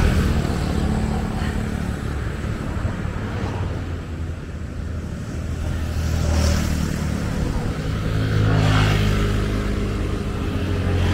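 Road traffic: motor vehicle engines running close by, with a steady low hum and two vehicles swelling past about six and a half and nine seconds in.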